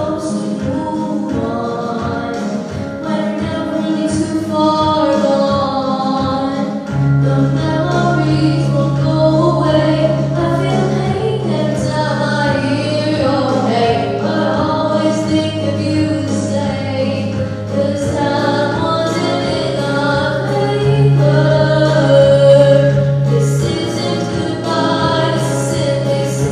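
Female solo singer performing a pop song live over a recorded backing track; a deep, steady bass line comes in about seven seconds in.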